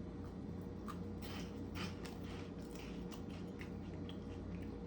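Person chewing two crunchy Cheetos Bolitas chili-and-cheese corn puff balls: a faint run of small, irregular crunches.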